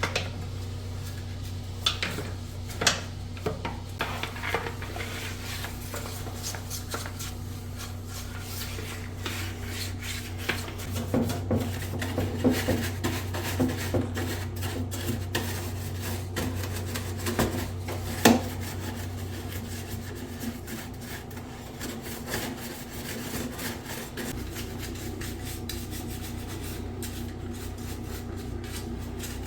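Rubbing and scrubbing on hard plastic bidet parts, with scattered sharp clicks and knocks as the parts are handled; the densest scrubbing comes in the middle, with the loudest knock just after it. A steady low hum runs underneath and stops about two-thirds of the way through.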